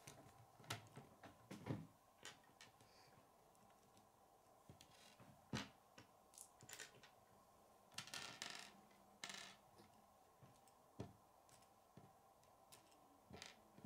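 Faint, scattered clicks and taps of plastic K'nex pieces being handled, snapped together and set down on a wooden table, with a short rustle about eight seconds in.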